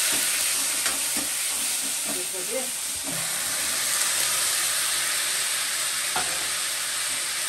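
Onions and tomatoes sizzling steadily in hot oil in a black kadhai, stirred with a steel ladle that gives a few light knocks against the pan. About four seconds in, boiled pork pieces are tipped in and the frying carries on.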